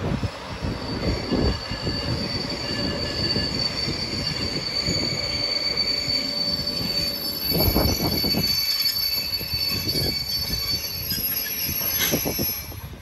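Wheels of a slow-moving ER2 electric train squealing with a high, steady screech as it rolls through the depot's curves and points, over low rumbling noise. The squeal dies away near the end.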